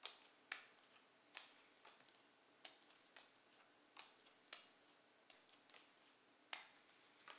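Playing cards being dealt one at a time onto a hard stone tabletop, each card landing with a sharp snap. There are about a dozen snaps, roughly two a second.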